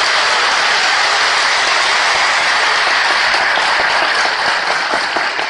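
Large audience in a hall applauding: dense, steady clapping that begins to die down near the end.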